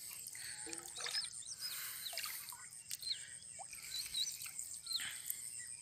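Birds chirping with many short quick calls that slide up and down in pitch, over soft swishing of lake water about once a second as a person wades.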